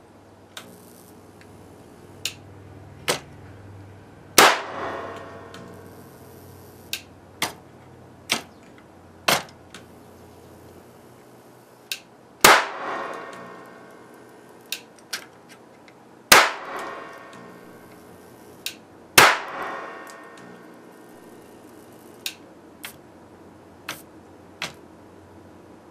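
High-voltage capacitor bank discharging into a CRT monitor circuit board: four loud bangs, each trailing off over about a second, spread among more than a dozen smaller sharp snaps and clicks.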